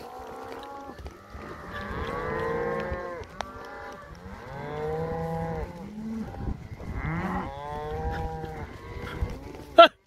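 Beef cows and calves in a herd mooing: a string of long, drawn-out calls, several overlapping. Near the end comes a brief, louder, higher call.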